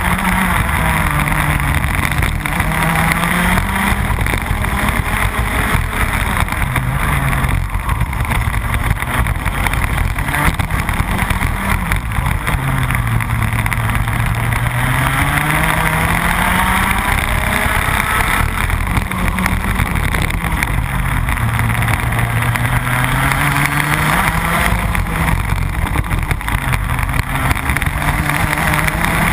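Rotax Max 125cc single-cylinder two-stroke kart engine at racing speed, heard from on board, its revs dropping and climbing again several times as it is driven through the bends.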